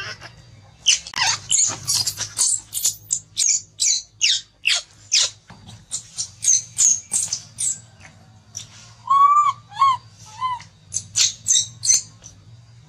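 Baby macaque screaming: a rapid run of short, shrill squeals, each falling in pitch, broken about nine seconds in by three lower, longer cries.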